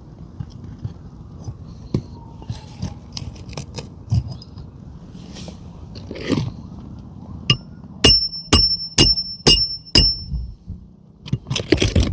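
Roofing nail being hammered by hand through a shingle into the roof decking: five sharp, ringing hammer blows about half a second apart in the latter part, after light scraping and clicking as the shingles are handled, and a short clatter near the end.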